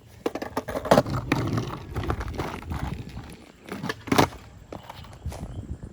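A skateboard knocking and clattering as it is handled, with two loud knocks, one about a second in and one about four seconds in.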